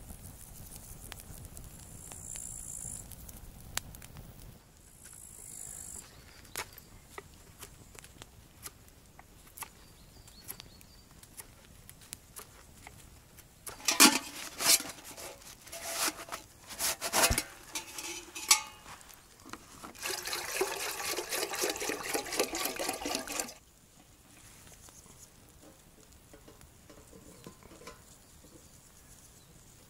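Small campfire crackling with scattered faint pops. About halfway in, metal camp cookware clanks and rings several times, then water is poured into a metal pot for about three and a half seconds.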